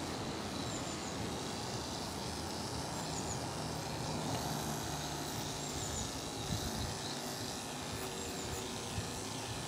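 Andis AGC two-speed electric dog clipper running steadily, its motor giving a low even hum as it trims the dog's fur.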